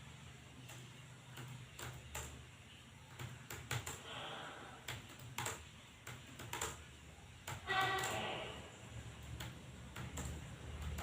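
Computer keyboard keys clicking at an irregular pace during typing practice. Faint voices are heard in the background about four seconds in and again near eight seconds.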